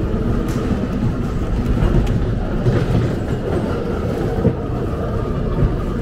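Ghost-train car rolling along its track, a steady low rumble with light rattling and clicking from the wheels and car.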